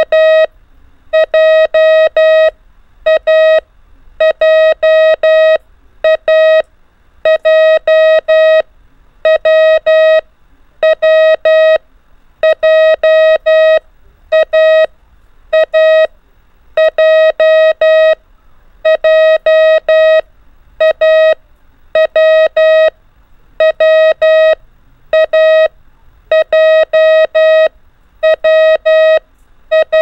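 Morse code practice tone sending random five-letter groups made of the letters A (·−), W (·−−) and J (·−−−), for the listener to copy by ear. One steady beep keyed in crisp dots and dashes, each group set apart by a pause of about a second.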